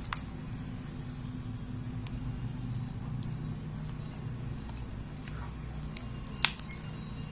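Small clicks and rattles of a plastic TV remote and its AA batteries being handled, with one sharp click near the end, over a steady low hum.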